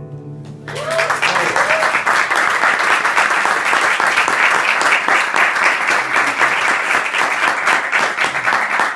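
The last acoustic guitar chord dies away, then a live audience breaks into steady applause under a second in, with a short vocal whoop or two early in the clapping.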